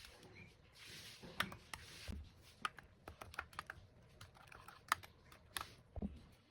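Irregular light clicks and taps, a few a second, like small hard objects being handled in a kitchen.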